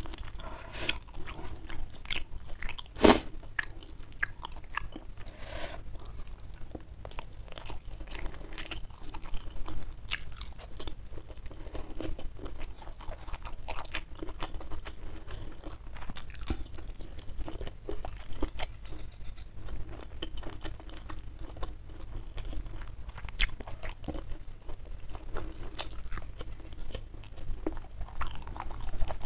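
Close-miked eating: a person chewing and crunching food with wet mouth sounds and many small clicks, and one sharp knock about three seconds in.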